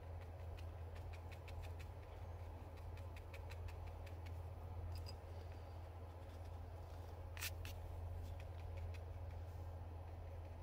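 Fine paintbrush flicking short fur strokes on watercolour paper: a run of faint, irregular ticks, a few a second, with one sharper tap about seven seconds in, over a steady low hum.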